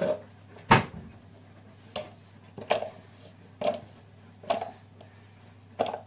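Raw potato sticks and kitchenware handled by hand: six short knocks and clatters, roughly one a second, each with a brief ringing tail, as pieces and bowls are picked up and set down.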